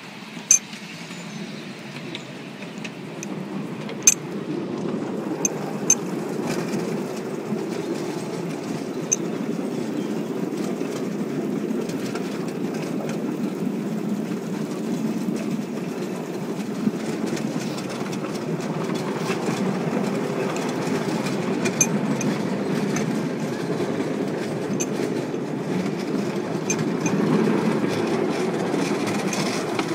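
Miniature railway passenger cars running along the track: a steady low rumble of small wheels on rail, growing louder over the first few seconds, with a few sharp clicks now and then.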